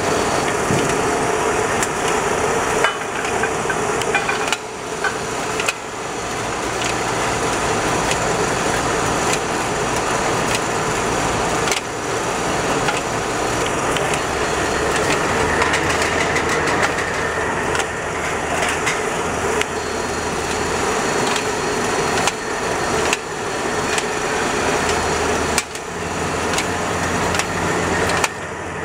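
An 18-head isobaric rotary can filler and seamer running: a steady machine noise with aluminium cans clattering through the conveyor and star wheels, and a few sharper knocks standing out.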